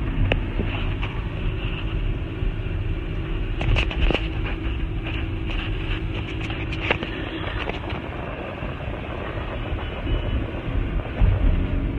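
Car cabin noise while driving at speed: a steady rumble of engine and tyres on the road, with a few short clicks and knocks from the phone being handled.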